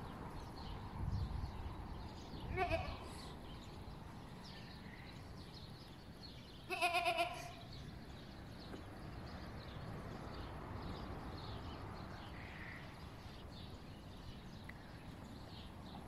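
Goats bleating: a faint bleat about two and a half seconds in, then a loud, quavering bleat about seven seconds in.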